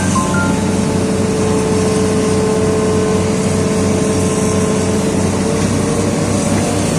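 Hitachi Zaxis 210F excavator's diesel engine running steadily, a low drone with a thin, steady higher whine over it.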